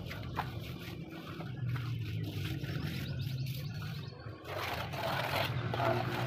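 Hand trowel scraping and smoothing wet cement, most strongly about four and a half seconds in, over a steady low hum.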